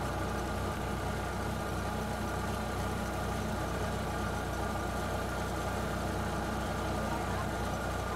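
Heavy diesel machinery engines running steadily at an even speed, with no revving or change in pitch.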